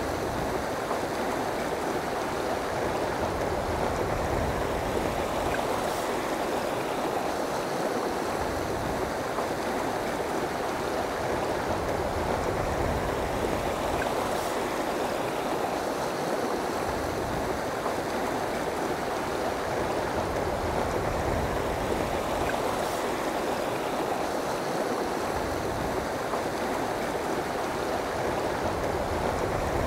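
Fast mountain river rushing steadily over boulders and through small rapids, with an even, unbroken sound of flowing water.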